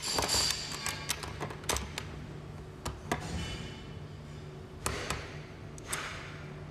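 Irregular light metallic clicks and taps from a castor wheel bracket being handled and fitted to a metal trolley frame, a few with a brief ring, over quiet background music.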